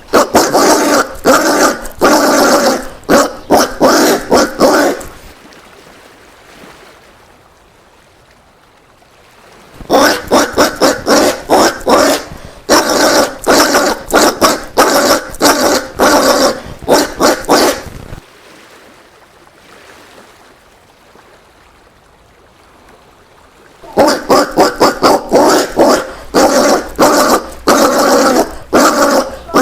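Collared peccary (caititu) calling: rapid strings of short, repeated calls in bouts of several seconds, broken by two pauses of about five seconds.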